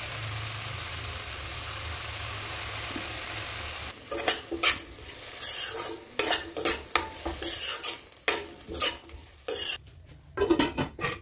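Amaranth greens and tomatoes sizzling in oil in a kadai, a steady hiss. About four seconds in, a steel spatula starts stirring and scraping the pan in a quick run of strokes, with a brief pause just before the end.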